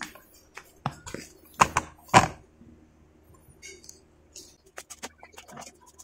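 A few sharp knocks and clicks from hands working on an e-trike, the loudest about two seconds in, followed by lighter scattered clicks.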